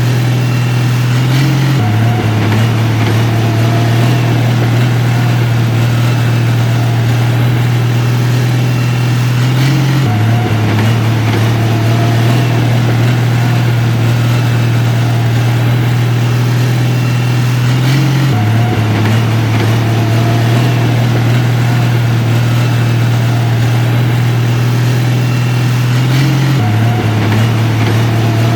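Heavy diesel engine of a construction machine running steadily with a loud low drone, its pitch stepping slightly about every eight seconds.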